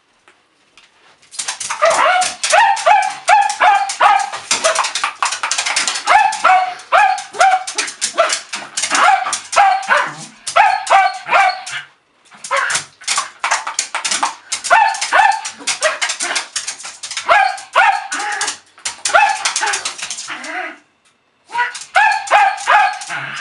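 Welsh terrier rapidly clicking and snapping his teeth at water squirted from a spray bottle, mixed with short, quick yips and barks several times a second. The sound breaks off briefly twice.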